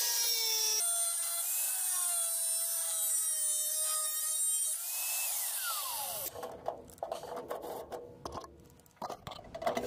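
Corded angle grinder with a thin cut-off (zip) disc cutting through a sheet-metal lid, its motor whine over the grinding of the disc in the metal. About five seconds in the trigger is let go and the whine falls steeply as the disc spins down, followed by a few scattered knocks and clicks.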